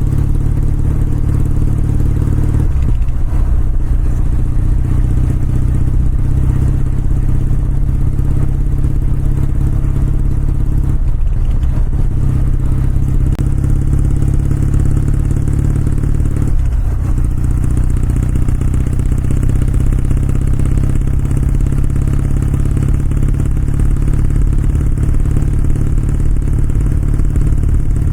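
Kawasaki W650's air-cooled parallel-twin engine and exhaust running steadily under way, with three brief dips in the engine note.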